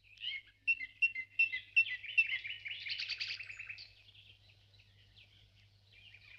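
Birds chirping: a run of short, high, repeated chirps, then a quick trill, dying away about four seconds in.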